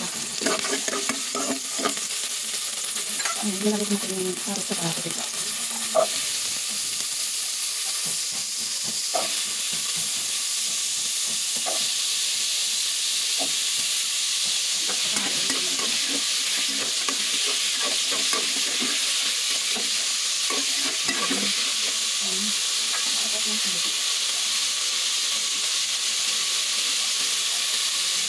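Onions and vegetables sizzling in hot oil in an aluminium pot, a steady frying hiss throughout. Short clicks and scrapes of a spoon stirring against the pot come mostly in the first half, and the sizzle grows fuller about a third of the way in.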